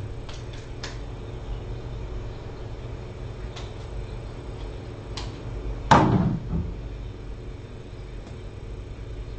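A sharp knock about six seconds in that rings out briefly, over a steady low hum with a few faint clicks.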